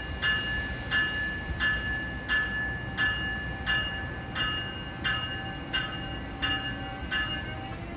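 Amtrak ACS-64 electric locomotive's bell ringing in steady, evenly spaced dings, about three every two seconds, as the train starts to pull out of the station. Near the end a low electric motor whine begins to rise as the train gets under way.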